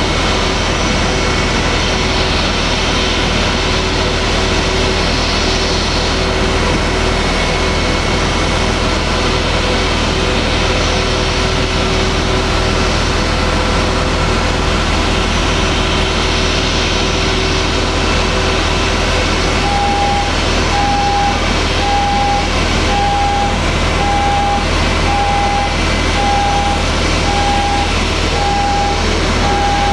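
Steady drone of apron machinery around a parked Boeing 777-200 at the gate, with a low hum underneath. About two-thirds of the way in, a warning beeper starts sounding about once a second as the passenger boarding bridge's canopy pulls back from the aircraft door.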